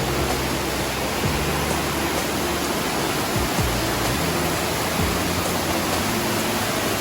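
Steady rush of falling water from a tiered waterfall and its river, an even roar without pause.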